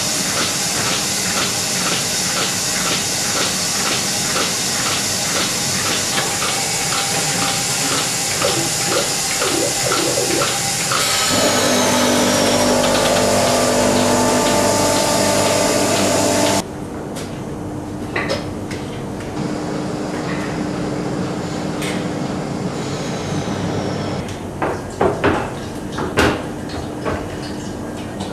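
Merlin robotic milking machine running: a dense hiss of air and vacuum with a regular pulsing, then a louder stretch of steady motor tones. About two-thirds of the way through the sound drops sharply to a lower steady hum with scattered clicks and knocks.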